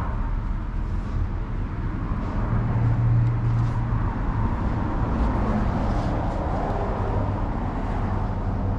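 An engine running steadily at idle, a low even hum that swells briefly a few seconds in.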